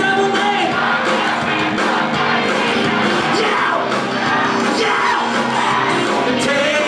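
Rock band playing live with a singer, the crowd yelling and cheering over the music.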